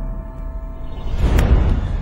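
Dramatic, ominous film-trailer music over a deep low rumble, with a noisy swell that peaks sharply about a second and a half in.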